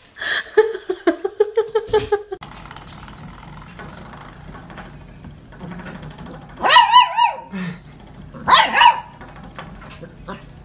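Fluffy puppy giving two short, high-pitched yapping barks about two seconds apart. Near the start comes a couple of seconds of quick, pitched pulsing sound.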